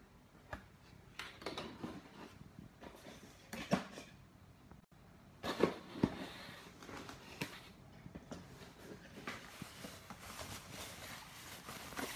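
Cardboard box and plastic wrapping being handled during unpacking: irregular rustling and crinkling with a few sharp knocks of cardboard.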